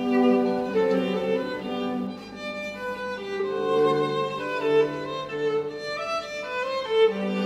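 Background music of bowed strings: a violin melody in held notes over lower sustained string notes.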